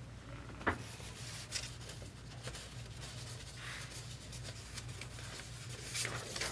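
Trading cards and plastic card holders being handled: light scratchy rustles and rubbing, with a sharp click about two-thirds of a second in and a louder rustle near the end, over a steady low hum.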